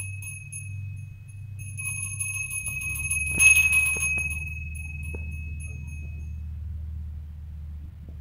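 Small brass puja hand bell rung rapidly during worship at a home shrine. It rings briefly at the start, then again from about two seconds in, is loudest about three and a half seconds in, and dies away by about six and a half seconds. A steady low hum runs underneath.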